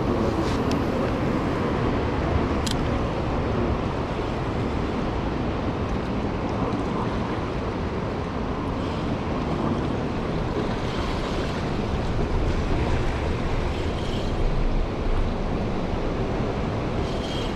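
Steady wash of surf on a beach, with wind noise on the microphone.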